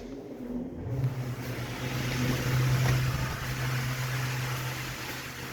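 Milking system's electric pump motor starts about a second in and runs with a steady low hum and a rushing hiss of air.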